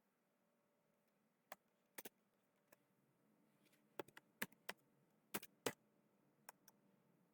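Computer keyboard keystrokes: about a dozen scattered, irregular clicks, bunched between about four and six seconds in.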